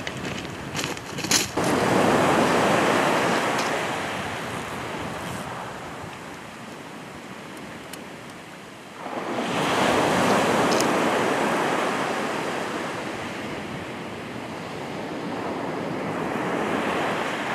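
Small waves breaking on a shingle beach, two surges that swell and fade, one about two seconds in and a louder one about nine seconds in. A few sharp clicks near the start.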